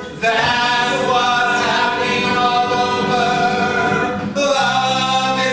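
Men singing together in harmony, holding one long chord and then moving to a new one about four seconds in.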